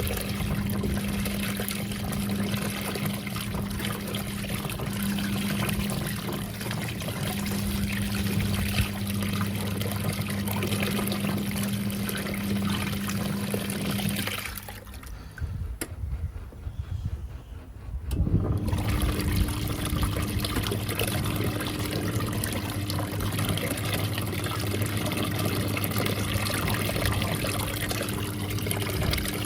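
National NA9450PN pulsator washing machine in its first rinse, water running and splashing in the tub with a steady machine hum. About halfway through the sound drops for a few seconds, then comes back with the hum at a higher pitch.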